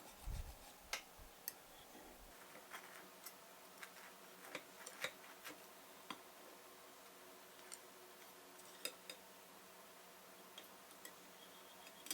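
Faint, scattered light clicks and taps at irregular intervals, with a few soft low thumps in the first two seconds.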